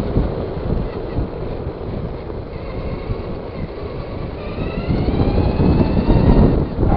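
Traxxas Stamped RC car driving: a rough rumble of tyres and wind noise with the electric motor's whine, which rises in pitch and gets louder about two-thirds of the way through as the car speeds up.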